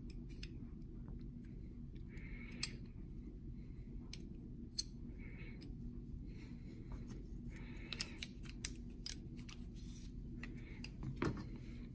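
Faint metal clicks and short sliding scrapes of a 1911 pistol's steel barrel and barrel bushing being handled and fitted back into the slide, a handful of sharp ticks spread through, over a low steady hum.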